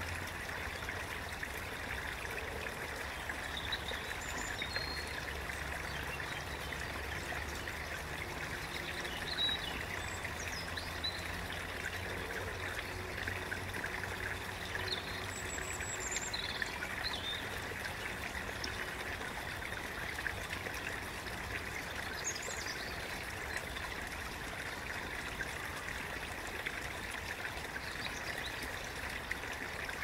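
A stream running and trickling steadily, with a few brief high bird chirps scattered through it.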